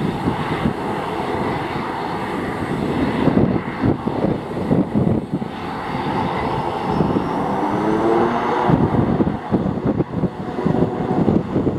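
Loganair ATR 42's twin turboprop engines running as the aircraft taxis, with gusts of wind buffeting the microphone. A tone rises briefly about seven to eight seconds in.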